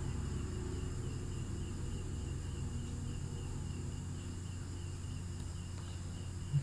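Steady low electrical hum and hiss picked up by a computer microphone, with a faint high chirp repeating at an even pace.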